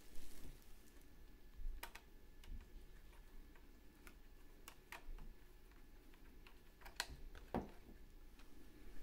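Irregular light clicks and taps of a small screwdriver and fingers on the plastic battery cover of a toy RC car's remote control as its screw is undone.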